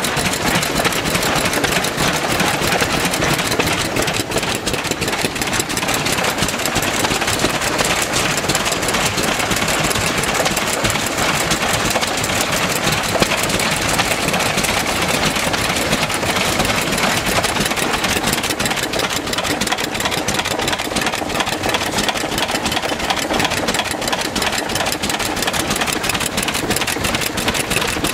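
Vintage stationary flywheel engines running steadily, with a quick, even beat of firing strokes.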